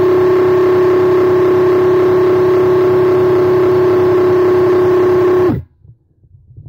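Graco X-Force HD handheld airless paint sprayer running with the trigger held, spraying top coat: its pump motor gives a loud, steady, even-pitched hum. About five and a half seconds in, it cuts off suddenly as the trigger is released.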